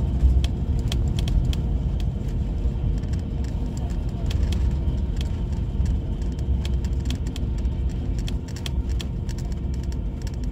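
Bus cabin heard from inside while the bus drives on the highway: a steady low road and engine rumble with a faint constant hum, and frequent light rattling clicks from the cabin fittings.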